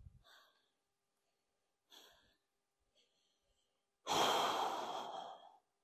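A person breathing hard from exertion: a few short, faint breaths, then one long, loud sigh about four seconds in.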